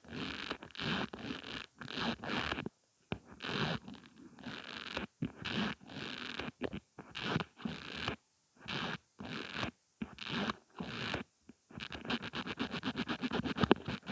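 Mascara wand and tube worked close to the microphone, giving a series of short scratchy, zipper-like strokes about two a second, which speed up into a quick run of strokes near the end.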